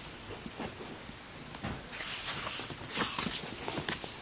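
Paper rustling and light taps as a picture book is handled, with short rustles about two and three seconds in.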